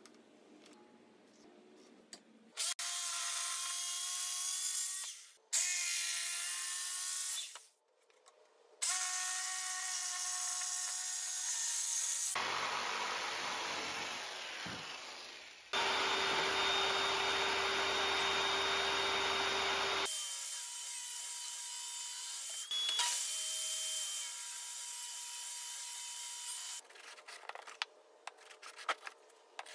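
Power saws cutting red oak boards in several separate runs of a few seconds each, among them a corded jigsaw, the motor's whine steady through each cut. Near the end, short scraping strokes of a hand plane on oak.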